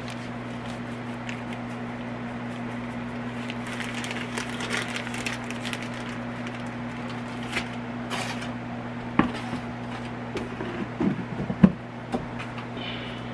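Plastic-bag glove rustling and flour breading being packed onto chicken wings over a steady low hum, with a few light knocks in the second half as the wings are handled at the air fryer basket.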